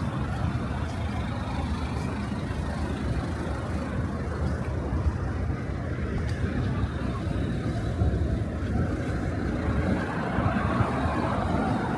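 Steady low rumble of city street traffic, with vehicles passing continuously.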